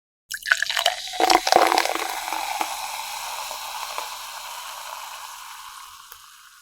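Soda poured over ice cubes in a glass: a few sharp ice clinks and a splashing pour in the first second or so, then the carbonation fizzing and slowly fading.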